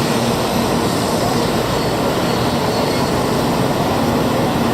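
Taiwan High Speed Rail 700T train pulling into the station alongside the platform: a loud, steady rushing noise with a faint low hum underneath.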